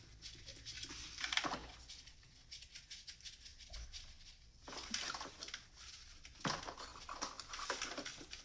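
Light metallic clicks and rustling from steel fuel-line fittings being threaded by hand onto diesel injectors, in scattered bunches.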